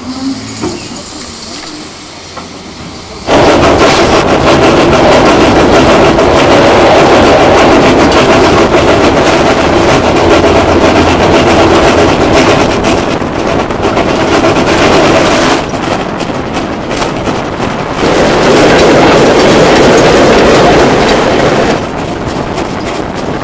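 Steam tram locomotive No. 16 running along the line, heard close beside its cab: a loud, steady mix of engine and wheel noise with many rapid clicks and knocks from the wheels on the rails. It starts abruptly about three seconds in, after a quieter stretch while the train stands at the platform.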